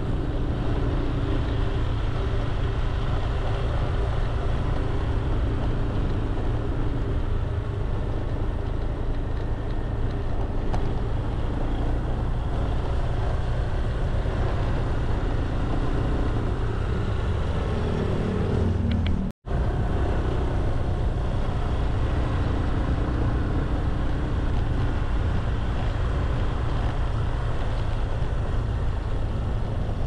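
Steady road traffic noise from passing vehicles' engines and tyres, cutting out for an instant about two-thirds of the way through.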